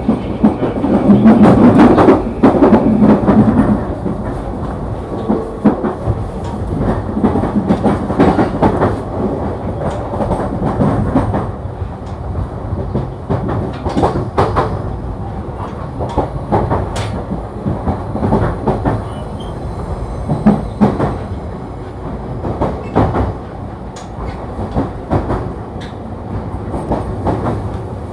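JR East E235 series electric train running on the rails, with a steady rumble and wheels clacking over rail joints, loudest about a second to four seconds in.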